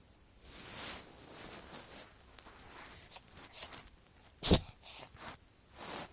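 A cat sneezing: one sharp, loud sneeze about four and a half seconds in, among softer short noisy puffs before and after it.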